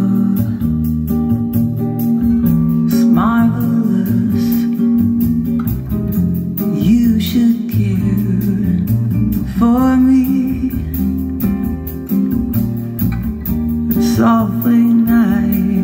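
Guitar-led recorded music played back loud through Altec A7 'Voice of the Theatre' horn loudspeakers, with a steady beat and a sustained low note.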